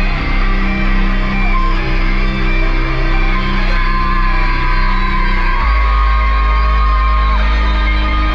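Loud music through a festival sound system: sustained synth-like notes over a steady bass line, with a heavier, deeper bass coming in about five and a half seconds in.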